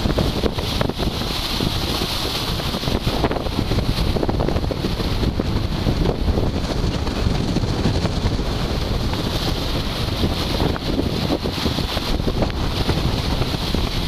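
Strong gusty wind buffeting the microphone as a steady deep rumble, over a hiss of wind and choppy river water that swells and fades with the gusts.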